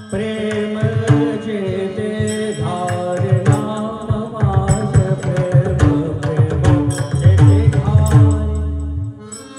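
Abhang devotional singing accompanied by pakhawaj drumming, with a steady drone underneath. The music drops away near the end.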